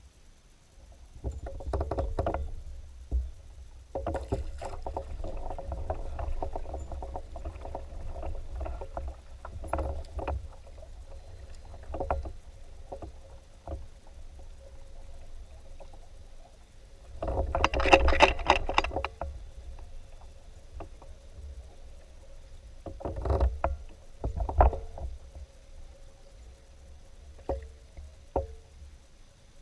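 Sounds on a fishing kayak: water sloshing and gear knocking on the hull in irregular bursts over a low rumble, the loudest burst a little past the middle. A faint steady hum runs underneath.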